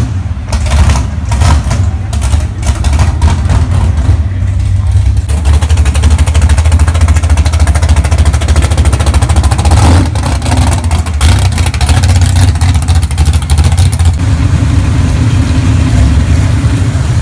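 Classic car engine running near idle, a loud, deep, steady exhaust note with fast even pulses, with a brief rise about ten seconds in.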